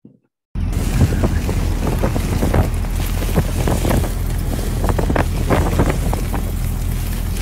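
Strong wind blasting across a phone microphone: a loud rushing noise with a heavy low rumble and repeated gusty pops, starting suddenly about half a second in.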